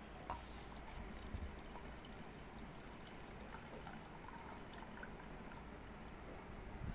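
Rinse water trickling faintly as it is poured off washed glutinous rice, from a stainless steel bowl into a ceramic bowl.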